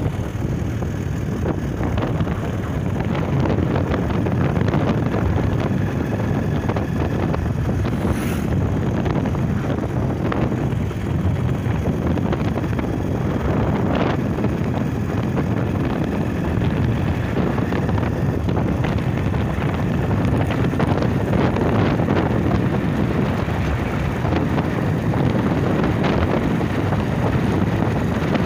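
Wind buffeting the microphone over the running single-cylinder engine of a Bajaj Pulsar 150 motorcycle, cruising at a steady pace.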